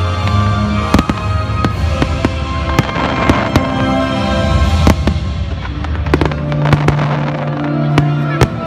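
Fireworks going off in a string of sharp bangs, thickest a little past three-quarters of the way through, over music with long held bass notes.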